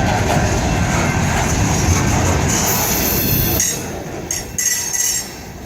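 Freight train rolling past, the steady rumble of railcars and wheels with high-pitched wheel squeal and hiss coming and going; the noise drops off about four seconds in.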